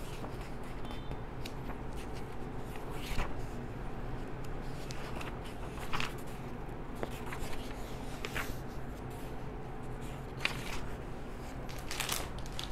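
Marker pen writing on a whiteboard: short scratchy strokes every few seconds over a faint steady low hum.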